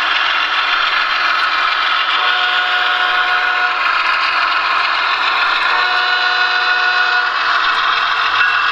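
Diesel train sound: a steady rumble of a passing freight train, with a horn sounding twice, each blast lasting about a second and a half.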